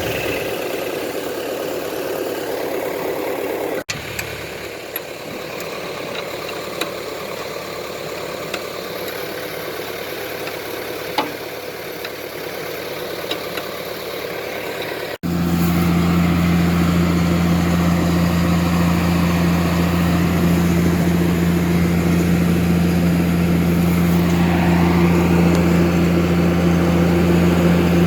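An engine running steadily, with a few light clicks and taps over it. After a cut about halfway through, a louder, steady engine hum at an even pitch takes over.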